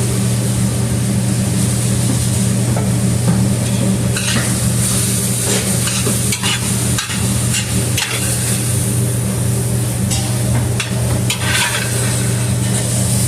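Onions and peppers sizzling in a frying pan as they are stirred, with the utensil scraping and knocking against the pan now and then, over a steady low hum.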